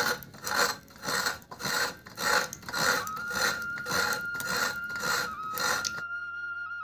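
Fresh coconut meat being grated out of the half shell in rhythmic rasping strokes, about two to three a second, stopping about six seconds in. A flute melody comes in about halfway and carries on after.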